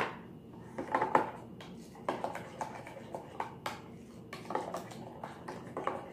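A spoon stirring a creamy dressing in a glass measuring cup, clinking and scraping against the glass in an irregular run of light clicks.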